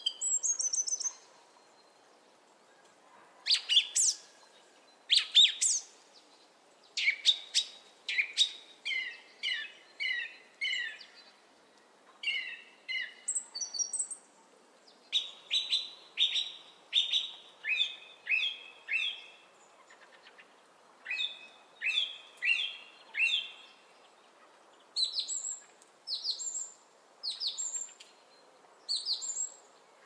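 A songbird singing: short phrases of clear, high, downward-sliding notes, with the same phrase often repeated several times in a row and brief pauses between phrases.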